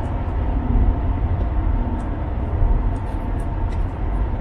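Car cabin noise at highway speed: a loud, steady low drone of the car running on the expressway. The driver finds this car too noisy, above all on the highway.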